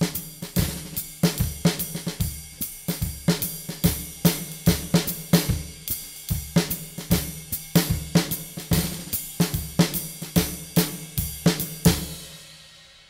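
Drum kit playing a swing groove at a somewhat quicker tempo: ride cymbal, hi-hat closing on 2 and 4, bass drum, and varied snare drum strokes. The playing stops about a second before the end and the cymbals ring out.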